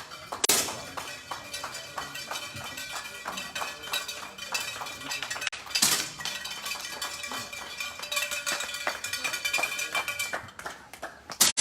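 10 m air pistols firing during a competition series: three sharp shots, about half a second, six seconds and eleven and a half seconds in, with fainter clicks between them, over background music.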